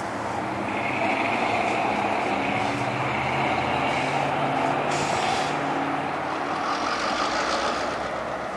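Diesel locomotive engine running steadily as the locomotive creeps forward, with a high-pitched squeal for the first few seconds, a brief hiss about five seconds in, and another high squeal near the end.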